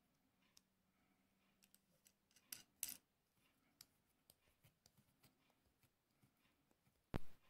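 Small steel parts of a miquelet flintlock and a little wing-nut mainspring vise being handled: scattered faint metallic clicks and taps, two sharper clicks about two and a half to three seconds in, and a louder short clack near the end.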